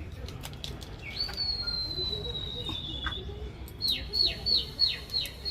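A bird singing: one long whistled note falling slightly in pitch, then five quick notes that each drop sharply, with small handling clicks.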